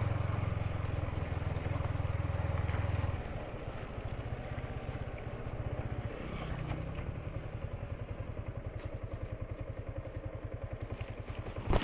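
Motorcycle engine running steadily, then dropping about three seconds in to a quieter idle with an even, pulsing beat.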